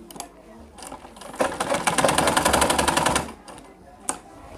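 Sewing machine running for about two seconds in a rapid, even stitching rhythm as it sews a short seam through the skirt belt fabric. A couple of sharp clicks from handling the machine and cloth come before and after the run.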